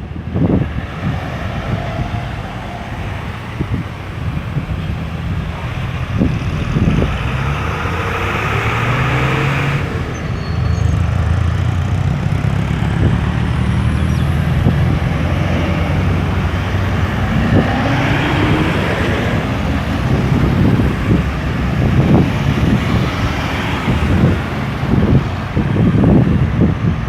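Road traffic at a roundabout: cars and heavier vehicles driving past with engine rumble and tyre noise, one pulling away with a rising engine note about two-thirds of the way in.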